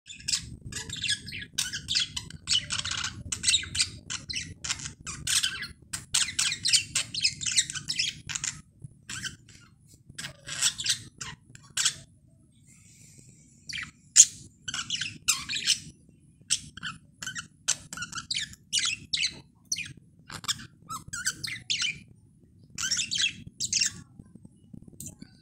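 Young male budgerigar singing: a fast stream of short chirps and squawks, with a pause of about two seconds near the middle.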